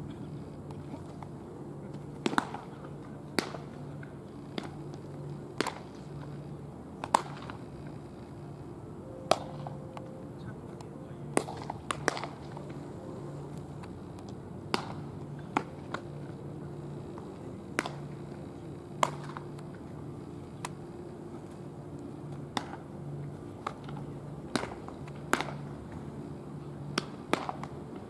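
Baseballs smacking into leather gloves as several pairs of pitchers play catch: about twenty sharp pops at irregular intervals, some loud and close, others fainter and farther off, over a steady low hum.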